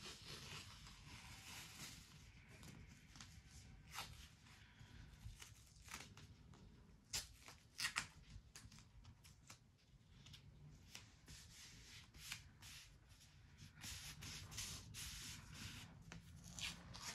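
Faint sounds of white athletic tape being pulled off the roll, torn by hand and smoothed onto the ankle, with a pair of sharper rips near the middle.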